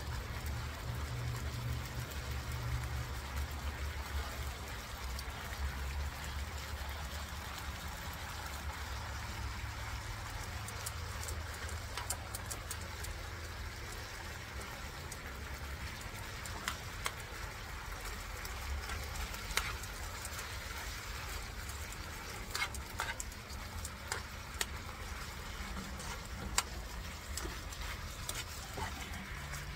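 Chicken tocino simmering and sizzling in its sauce in a pan on a gas grill burner, over a steady low rumble. From about a third of the way in, metal tongs click and scrape against the pan now and then as the pieces are stirred.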